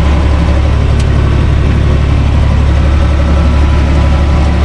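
U445 DT tractor's diesel engine running steadily, heard from inside the driver's cab, with a single brief click about a second in.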